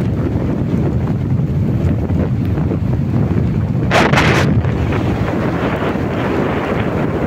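Wind buffeting the microphone: a loud, steady low rumble, with a brief louder rush of noise about four seconds in.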